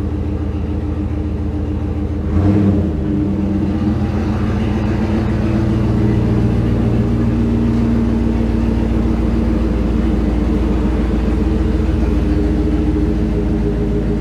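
Chevrolet pickup truck's engine idling steadily as the truck reverses slowly, with a brief swell about two seconds in.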